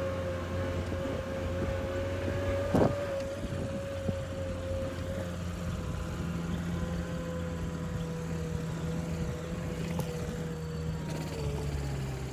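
A small vehicle engine runs steadily with a constant hum and whine. There is one sharp knock about three seconds in, and the engine note drops slightly near the end.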